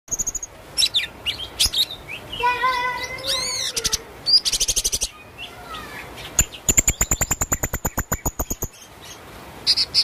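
Serindit (blue-crowned hanging parrot) singing a varied training song: sharp chirps, a short warbled whistle, then a quick trill and a longer rapid pulsed trill lasting about two seconds.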